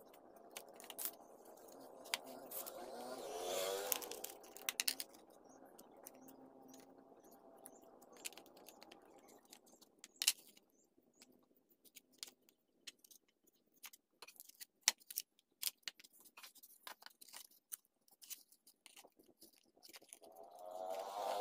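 Scattered clicks, taps and light scrapes of a metal ruler and fingers working a strip of soft clay on a wooden board. A low pitched hum swells and fades about three to four seconds in and swells again near the end.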